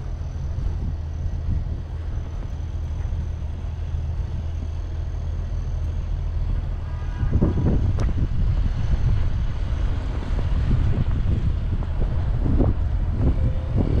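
A large vehicle's engine rumbling close by, a steady low drone that grows louder and fuller about halfway through.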